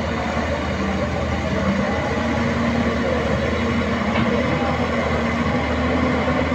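Caterpillar 320D hydraulic excavator's diesel engine running steadily while the machine slews its upper structure and boom around.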